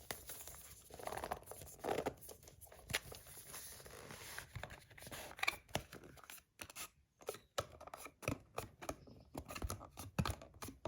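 Cardboard packaging being cut and torn open by hand, an irregular run of tearing, scraping and sharp clicks.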